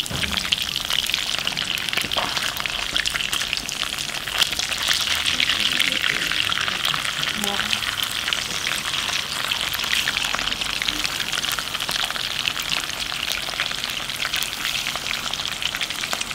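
Pieces of raw eel sizzling in hot oil (ajillo) in a small cast-iron skillet: a steady, dense crackle of fine pops.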